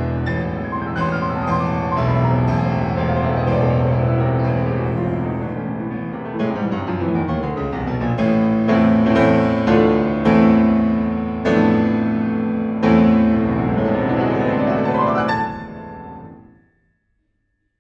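Fazioli grand piano played solo: a classical passage with a long descending run, then loud struck chords and a quick rising run to a final chord. The final chord is damped suddenly, closing the piece.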